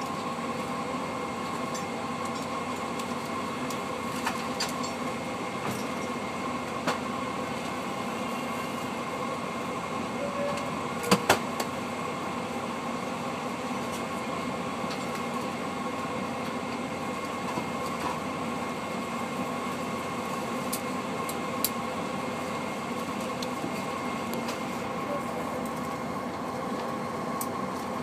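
Steady hum inside a Boeing 747-400 cabin, a mechanical drone carrying several steady tones, with two sharp clicks close together about eleven seconds in and a few fainter ticks.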